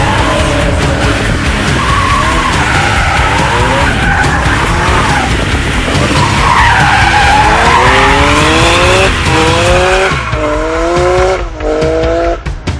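BMW M3/M4 twin-turbo straight-six pulling hard under acceleration, with tyres squealing. In the second half the engine note climbs and drops abruptly several times in quick succession as it shifts up through the gears.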